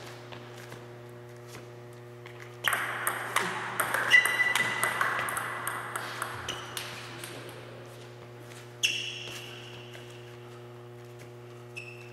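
Table tennis rally: a ping-pong ball clicking back and forth off the rackets and table in quick succession, with a few short squeaks mixed in. The rally picks up about three seconds in, and another run of hits comes near the end, over a steady low hum.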